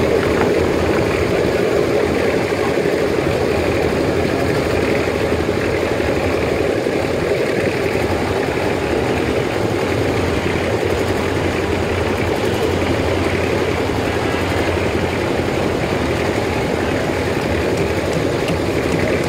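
Hyundai 220LC crawler excavator's diesel engine running steadily under load as the machine digs soil and swings its boom.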